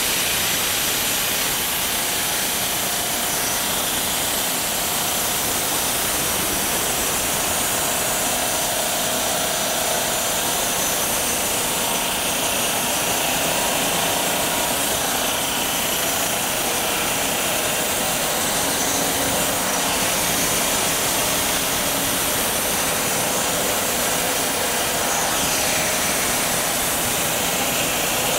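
Homemade band sawmill running and cutting through a spruce log: a steady, even motor-and-blade noise with no pauses.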